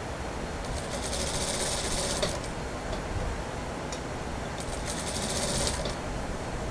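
Industrial lockstitch sewing machine stitching a suit sleeve in two short runs, the first about a second and a half long starting near the beginning, the second about a second long a little after the middle, each a fast even buzz of the needle that stops abruptly.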